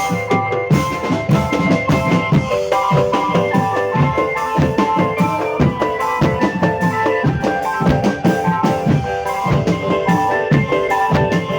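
Music with a busy, fast drum beat under a melody of held notes that step up and down.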